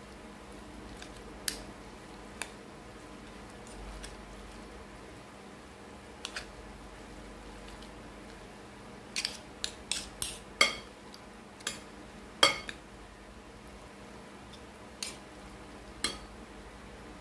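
Metal spoon clinking and scraping against a glass mixing bowl while stirring a mayonnaise-coated macaroni salad: scattered sharp clinks, a quick run of them around the middle and a couple more near the end.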